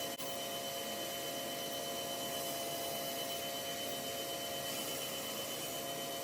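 Small electric machine running steadily, a constant whine over an even hiss, with a brief dropout just after the start.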